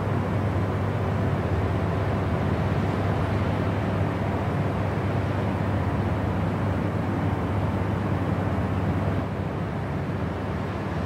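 Steady low drone of a jet airliner's cabin at cruise, engine and airflow noise with a deep rumble and faint steady tones. The level dips slightly about nine seconds in.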